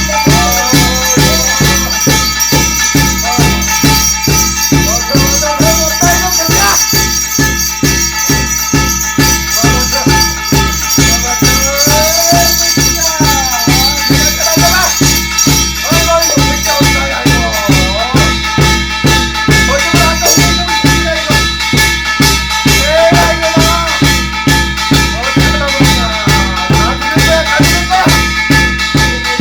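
Korean shamanic gut ritual music: a fast, steady beat with shaken rattling percussion over it, and a wavering melody line bending up and down.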